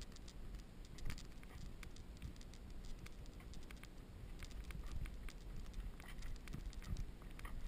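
Footsteps crunching on a dry, sandy dirt trail, an uneven run of small clicks over a steady low rumble.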